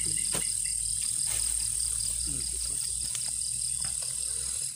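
Night insects, crickets, trilling steadily: one continuous high-pitched trill with a second, pulsing trill a little lower. A few faint clicks sound now and then beneath it.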